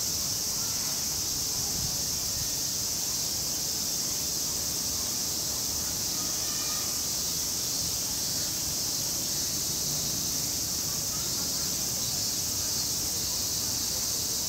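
Steady, high-pitched chorus of insects chirring.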